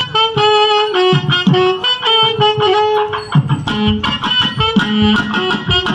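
Music starts suddenly: a quick melody of separate notes over low, regular thumps.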